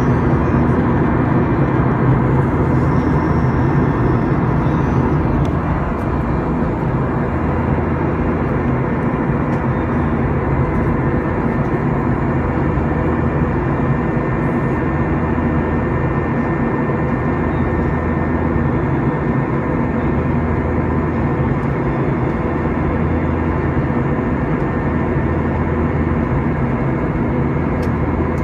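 Steady, loud engine drone with a low hum, running on without a break.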